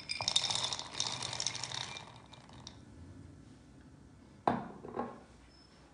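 Dry roasted chickpeas poured into a food chopper bowl, clattering for about two seconds before trailing off. Two sharp knocks follow, about half a second apart, near the end.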